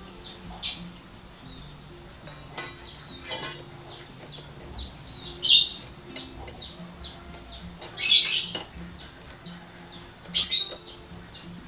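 Salted duck eggs clinking against a perforated steel skimmer and against each other as they are scooped up, in several short sharp clicks. Small birds chirp repeatedly in the background.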